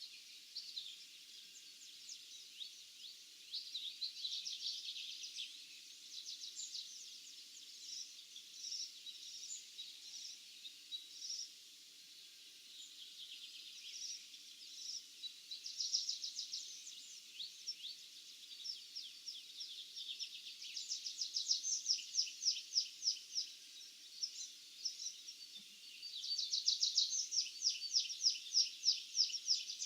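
Birds singing and calling in an open field at dawn, a dense chorus of high chirps and trills. Two long runs of rapidly repeated notes stand out in the second half, over a faint steady low hum.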